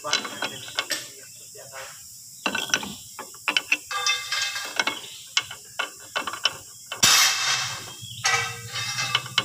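Irregular metallic clicks and knocks of steering parts being worked as a tie rod end is fitted into the steering knuckle arm on a Case 580M backhoe's front axle. A louder scraping burst comes about seven seconds in.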